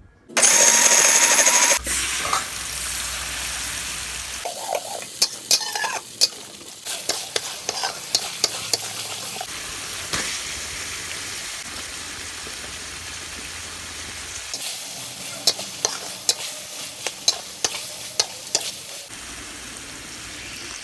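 A blender runs loudly for about a second and a half. Then chilli, onion and garlic paste sizzles in hot oil in a wok, with many sharp clinks and scrapes of a spatula stirring it, as chicken and carrot fry in it.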